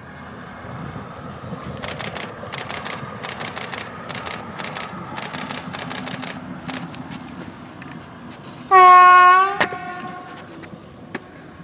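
Uerdinger diesel railbus running past, its wheels clicking over rail joints, then one horn blast of about a second on a single steady tone, the loudest sound.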